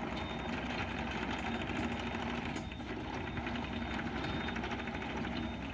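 Yanmar ViO55-6A mini excavator's 47 hp Tier 4 diesel engine running steadily with a fast, even clatter while the machine works. A steady low whine sits under it, and a faint high tone comes and goes.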